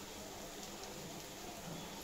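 Sabudana cutlets deep-frying in a pan of hot oil: a faint, steady sizzle with a few small crackles.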